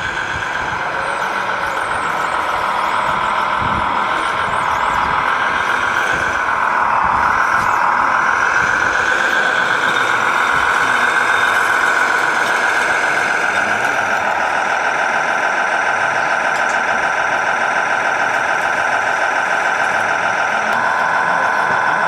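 Remote-controlled scale construction models, among them a single-drum soil compactor, driving over dirt with the steady high whine of their small electric drive motors and gearing. The pitch wavers between about four and eight seconds in and shifts slightly near fourteen seconds.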